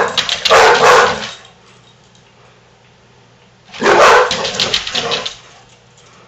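Basset hounds barking at each other in play: a loud bout of deep, rough barks in the first second or so, then quiet, then a second bout about four seconds in lasting a second and a half.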